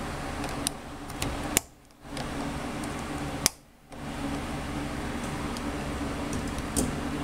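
Steady mechanical hum like a running fan, with a few light metallic clicks as pliers and fingers work the retaining clip on a riding-mower starter's pinion gear. Twice the sound cuts out for a moment, each time just after a click.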